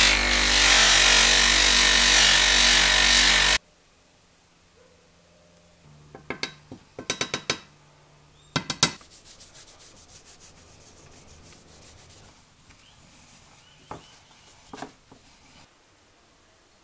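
Bench grinder running a fibre polishing wheel, with a brass clock bezel ring pressed against it for buffing. The motor hum and the rubbing of the brass on the wheel cut off suddenly a few seconds in. Quieter scattered clicks and taps follow.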